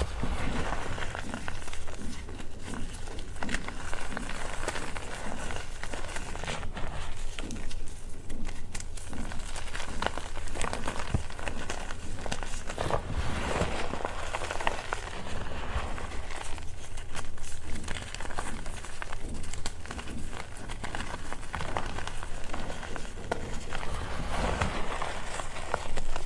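Hands crushing and squeezing crumbly lumps of reformed gym chalk, a steady dense crunching and crackling as the chunks break apart.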